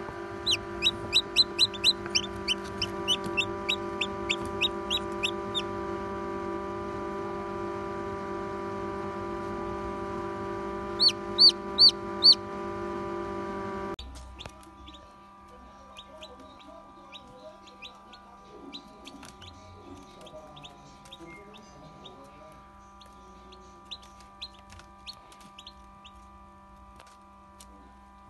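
Newly hatched chicks peeping: rapid runs of short, high peeps in the first few seconds, four loud peeps about eleven seconds in, then fainter scattered peeping. A steady hum runs underneath and drops in level about halfway through.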